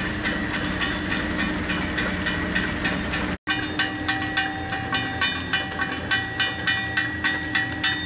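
Horizontal flow-wrapping machine packing dishwasher tablets, running steadily: its rotary end-sealing jaws and feed chain give an even clicking, about three a second, over a steady mechanical hum. A brief dropout comes a little over three seconds in, and after it the clicks are sharper.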